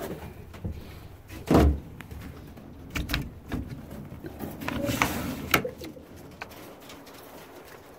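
Pakistani high flyer pigeons cooing. A loud knock comes about one and a half seconds in, and a few lighter knocks and clicks follow.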